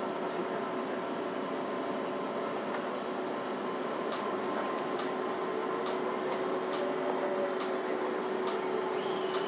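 Cabin noise of a city transit bus under way, a steady hum with a constant tone. From about four seconds in, a light tick repeats roughly once a second.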